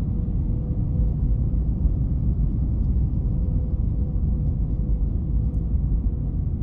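Cabin noise inside an Airbus A321 descending on approach with flaps extended: a steady low rumble from the engines and airflow, with a faint steady hum near 500 Hz above it.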